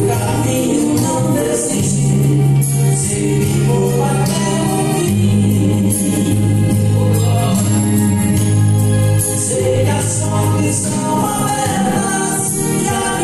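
Gospel song sung by a man into a microphone over amplified backing music, with long held low notes beneath the voice.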